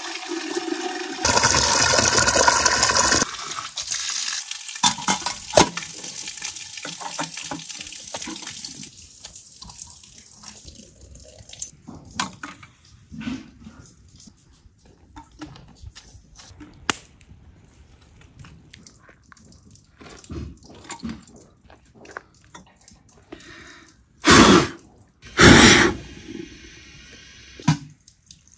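Spring water pouring from a stone spout into a metal samovar. It is loud for the first few seconds, then gives way to quieter trickling and scattered clicks and knocks. Near the end come two short, loud rushing bursts about a second apart.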